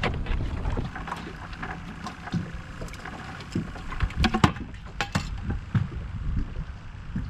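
Wind buffeting the microphone over a steady low rumble of water around a small boat, with a few sharp clicks and knocks near the middle.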